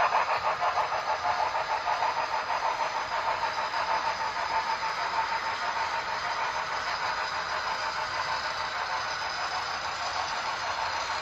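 HO scale model freight cars rolling along the track, a steady rattle with a quick rhythmic clicking from the wheels. It fades over the first several seconds and then stays level.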